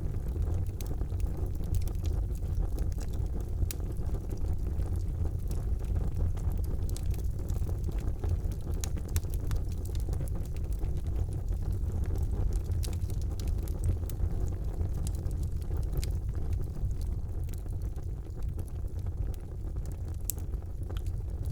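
Wood campfire crackling with frequent sharp pops, under a steady low rumble of wind on the microphone.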